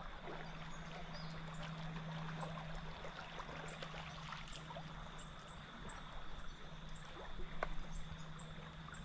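Faint trickling water at the river, with a low steady hum underneath and a few small ticks.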